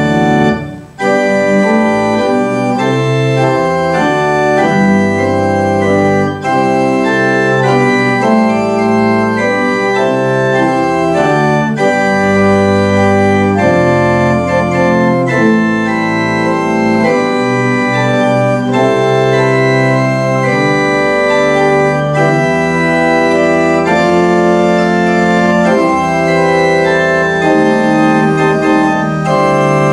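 Church organ playing sustained chords in a slow postlude at the close of the service, with a brief break about a second in before the chords carry on without stopping.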